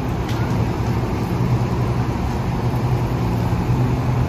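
Steady low mechanical hum from the tram system running in the guideway at the station, holding a few low pitches.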